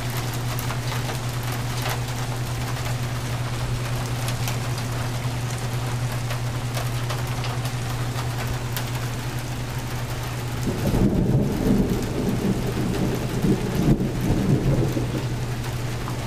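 Rain pouring steadily, with a low rumble of thunder that swells and fades over a few seconds about two-thirds of the way through.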